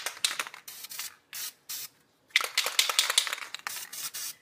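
Aerosol spray can hissing out black paint in short blasts: one just as it starts, two quick puffs around the middle, and a longer blast of about two seconds near the end.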